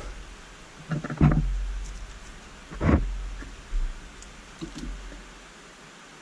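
A few short knocks and clunks of a bracket and cable being handled and fitted, over a low rumble that fades away near the end.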